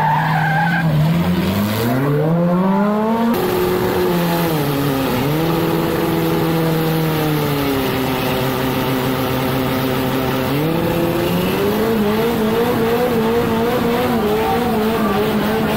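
Drag-racing car's engine revving up, then held at steady revs that step down about eight seconds in and climb again to a slightly wavering steady level from about eleven seconds.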